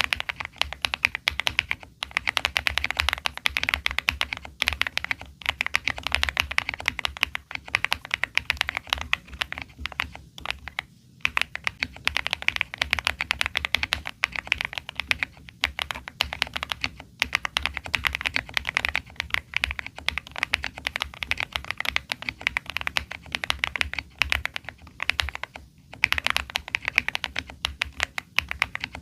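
Fast, continuous typing on a Finalkey V81 Plus mechanical keyboard with stock Dangkeebs Halu Halo V2 switches, the board modded with tape, a PE sheet and foams. The keys clack in quick runs, with brief pauses a few times.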